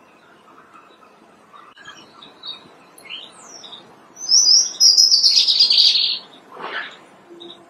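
European robin singing: scattered thin, high notes and short slurs, then about four seconds in a loud, fast warbling phrase lasting around two seconds.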